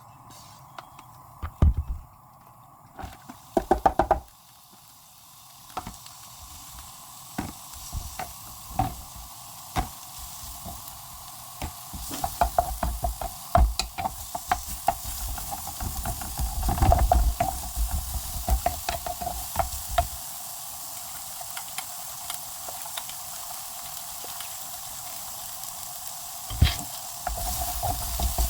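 Stir-frying in oil: a pan sizzling, the hiss building a few seconds in, while a spatula taps and scrapes against the pan in quick clusters of knocks.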